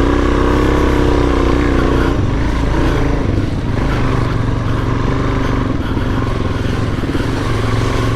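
Suzuki DR-Z400S single-cylinder four-stroke engine running steadily under light throttle. Its note is clearest in the first two seconds.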